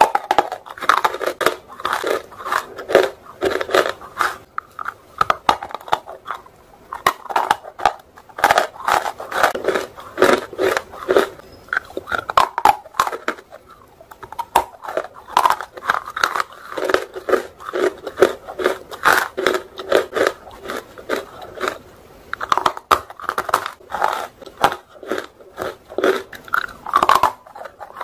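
Biting and chewing dry, roasted Nakumat chunks, one chunk per bite: a fast run of brittle crunches with a short quieter spell about halfway through.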